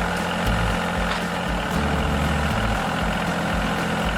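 A vehicle engine running steadily, its low note shifting up and down every half second or so.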